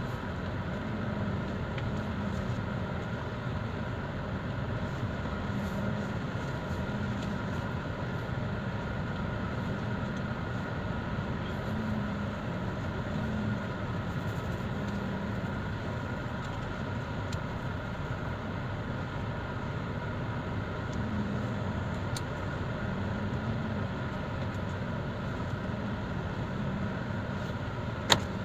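Steady hum inside a car's cabin with the engine running while the car is driven slowly. There is one sharp click near the end.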